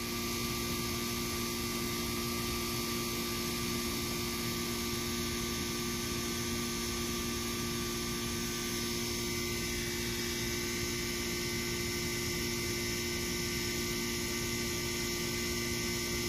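A steady hum made of several constant tones over an even hiss; no barks or other sudden sounds stand out.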